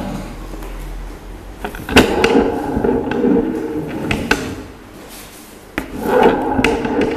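Several sharp knocks and thuds as a person moves about and handles rope close to a camera resting on the floor, over a wavering tone that fades in the middle and returns near the end.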